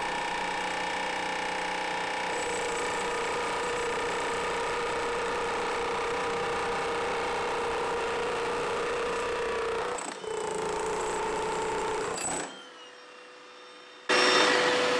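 Two Hilti electric jackhammers, one cordless Nuron and one corded, running together and breaking concrete slabs: a steady hammering with a motor whine. It dips briefly about ten seconds in, falls much quieter after about twelve seconds, and comes back loud near the end.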